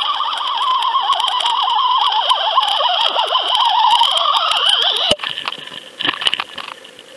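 Wavering underwater whine heard through a camera on a fishing line as it and a hooked lingcod are reeled up. The whine cuts off abruptly about five seconds in as the camera breaks the surface, followed by a few splashes from the lingcod at the surface.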